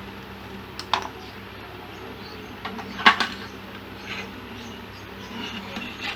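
A few sharp clicks and taps of tools and parts being handled on a workbench, the loudest about three seconds in, over a steady low hum.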